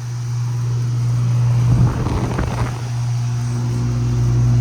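Central air conditioner condenser running, its Emerson Copeland scroll compressor giving a steady low hum; a second, higher hum tone joins about three seconds in.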